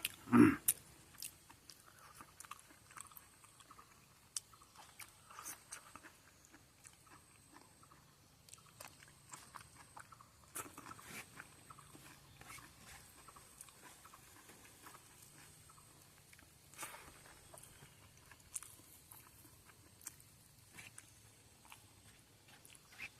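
A person biting and chewing food, with scattered small crunches and clicks throughout.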